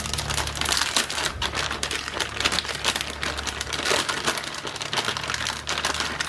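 Close rustling and crackling handling noise, dense and irregular, over a steady low hum.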